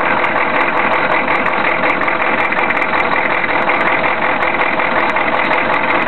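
Chevy 6.5-litre turbo diesel V8 idling rough, heard close up in the engine bay, a steady unbroken engine sound. The rough idle comes with visible blow-by at the crankcase vent.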